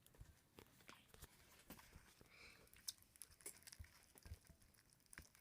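Very faint, scattered small clicks and soft squelches of glue slime being stirred in bowls.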